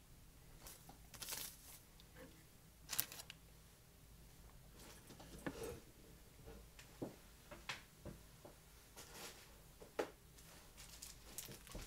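Quiet handling at a fly-tying vise: a few scattered soft clicks and light rustles of tools and fly materials.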